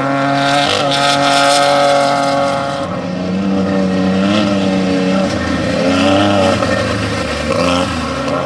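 Off-road racing vehicle's engine running hard, its note rising and falling several times as the throttle changes.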